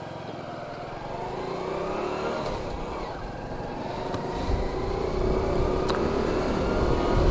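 Honda Pridor's 100cc single-cylinder four-stroke engine running as the bike is ridden, its pitch rising in the first few seconds and the sound growing gradually louder. A low rumble joins about four seconds in.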